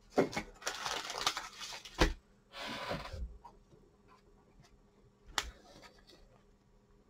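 Trading cards and foil pack wrappers being handled: rustling and crinkling for about three seconds, with a sharp tap about two seconds in and another near five and a half seconds in.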